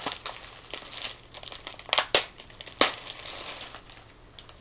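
Plastic bag wrapping crinkling and rustling as it is handled and pulled open, with a few sharp, louder crinkles about two seconds in and again near three seconds, tapering off near the end.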